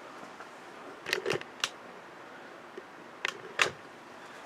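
Sharp plastic-and-metal clicks and light knocks from taking apart an LED television: three about a second in and two more a little after three seconds.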